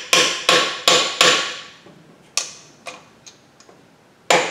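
A hammer striking a bearing installation tool, driving a new bearing into the front differential housing with sharp metallic ringing blows. There are four quick strikes, then two spaced ones and a pause, and the blows start again near the end.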